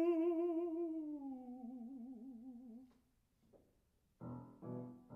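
A baritone voice holding a final sung note with vibrato, stepping down to a lower note about a second in and ending about three seconds in. Near the end a piano plays two chords about half a second apart.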